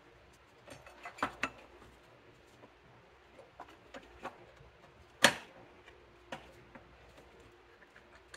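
Scattered light clicks and knocks of hands fitting hoses and a bracket on an engine's intake plenum. There is a small cluster about a second in and a single sharper knock about five seconds in.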